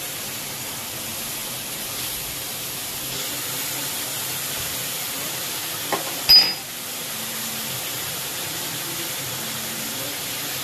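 Steady frying hiss from shredded cabbage, carrot and capsicum stir-frying in a large aluminium pot. About six seconds in there are two sharp metallic clinks close together, the second louder.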